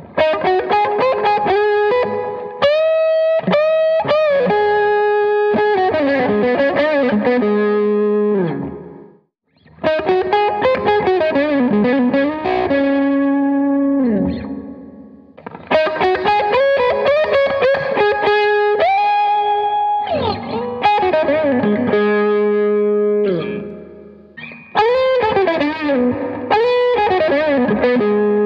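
Electric guitar played through a Dr. Z Jetta 30-watt tube combo amp: single-note lead phrases with string bends and held notes, in four phrases with short pauses between them.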